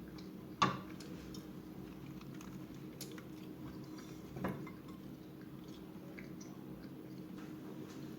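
Quiet food and kitchen handling sounds: a sharp click about half a second in and a softer one about four and a half seconds in, with faint small taps between them, over a steady low hum.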